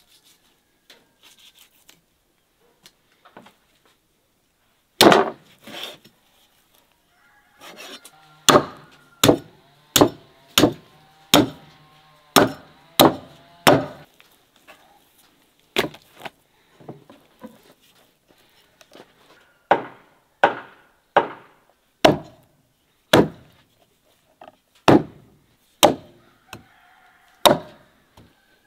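Meat cleaver chopping through a rack of lamb ribs onto a wooden cutting board. About five seconds in come the first chops, then a long run of single sharp chops, roughly one or two a second.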